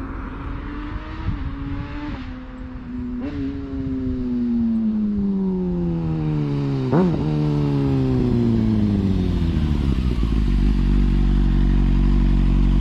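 Kawasaki ZX-6R 636's inline-four running through an aftermarket straight-through exhaust as the bike comes back. There are two short jumps in revs, then the revs fall steadily as it slows, with one sharp throttle blip about seven seconds in. It settles to a steady idle close by near the end.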